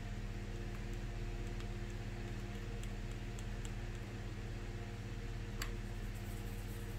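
A steady low electrical hum with a few faint light ticks, the clearest near the end, as a paintbrush works paint on a paper-plate palette.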